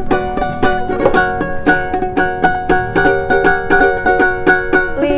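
Acoustic string instrument strummed in a steady rhythm, about three chords a second, with no singing.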